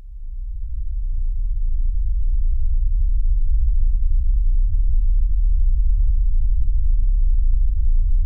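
A deep, steady rumble that fades in over about the first second, then holds at a constant level.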